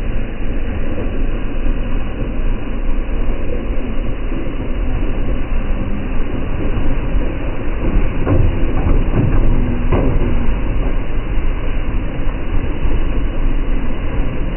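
Truck-mounted Zaugg rotary snow blower running under load, its engine and spinning cutter drum making a steady, dense mechanical noise as it chews through deep snow and throws it out of the chute. A few brief knocks come about eight to ten seconds in.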